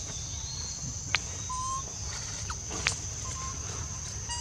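Outdoor ambience: a steady high-pitched drone, with two sharp clicks and two short, high peeps.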